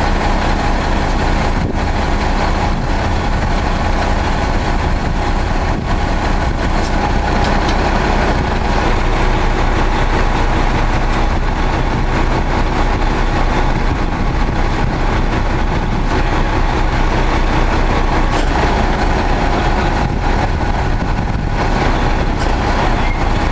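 Heavy diesel truck engine running steadily at idle.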